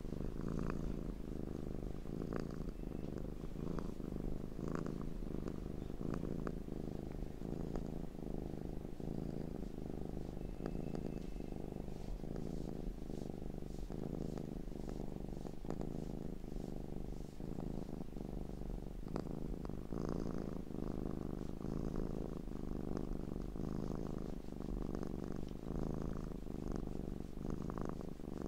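Domestic cat purring, a low continuous purr that pulses in an even rhythm.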